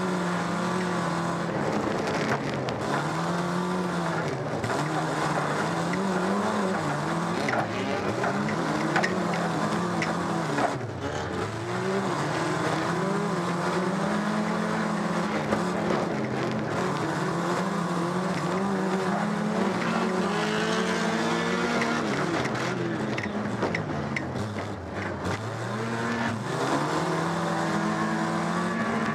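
Stock car engine heard from inside the cockpit, revving up and dropping back over and over as the driver accelerates and lifts off, with a few short knocks from the car.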